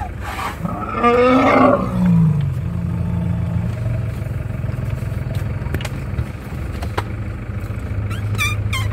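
A Sri Lankan elephant gives a short roar about a second in, its pitch falling away at the end, over the steady low hum of the safari jeep's engine idling.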